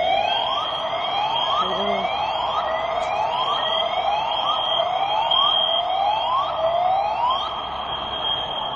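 Fire alarm sounding a repeating rising whoop, about three sweeps every two seconds, over a steady high-pitched tone; the whooping stops near the end while the high tone keeps on.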